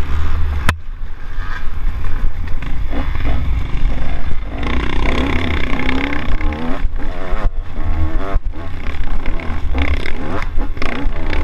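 Off-road dirt bike engine revving up and down over and over as the rider works through the gears on a rough trail, with heavy wind rumble on the onboard microphone. Scattered knocks from the bike bouncing, and a sharp click less than a second in.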